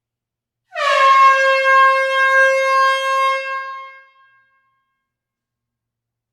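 A single long air horn blast starting just under a second in. Its pitch dips slightly at the onset, then holds steady for about three seconds before fading away.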